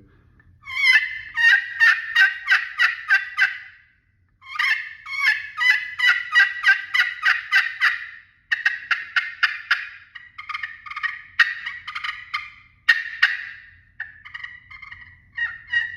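Slate pot turkey call with a Hawaiian Koa body, played with a striker. It gives runs of sharp, raspy hen yelps at about four notes a second in three long series, then softer, quieter yelps near the end.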